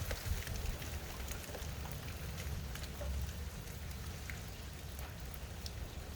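Steady rain falling, an even hiss with many scattered individual drop ticks, over a low rumble.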